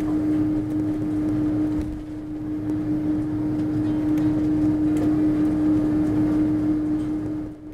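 Airbus A330-300 cabin noise while taxiing: the engines running at idle under an even rush of noise, with a steady mid-pitched hum throughout. It fades out at the very end.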